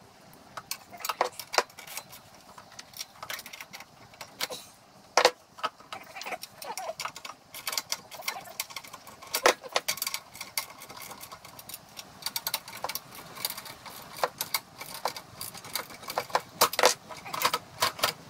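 Irregular metallic clinks, clicks and knocks as the steel control lever, linkage bracket and bolts of a tow-behind broadcast spreader are handled and fitted by hand, with a couple of louder knocks and a busier run of clicking near the end.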